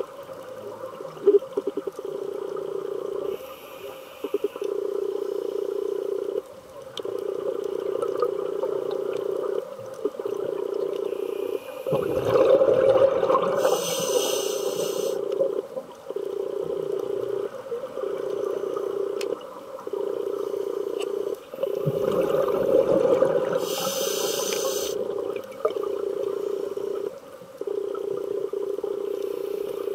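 Scuba breathing heard underwater through a regulator: two long, rough rushes of exhaled bubbles, about twelve and twenty-two seconds in, over a steady droning hum.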